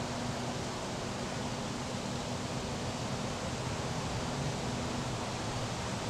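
A steady, even hiss of noise with a faint low hum underneath, unchanging throughout, with no distinct events.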